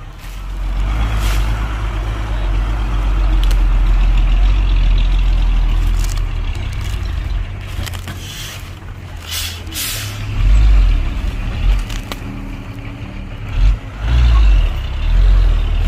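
Hyundai five-ton dump truck's diesel engine running hard, its deep rumble swelling and surging several times. Several short hisses of air come partway through.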